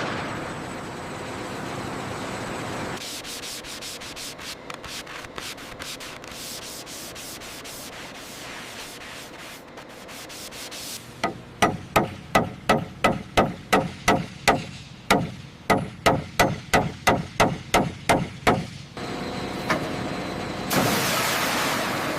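Rubbing strokes over a surface, faint and quick at first, then a run of loud, even strokes about two or three a second, with steady hiss before and after.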